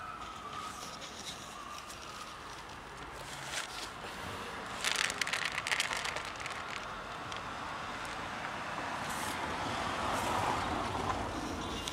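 Dry cat kibble poured from a plastic container into a plastic food box: a dense rattling clatter of pellets about five seconds in, lasting a second or two. A steady background rush swells near the end.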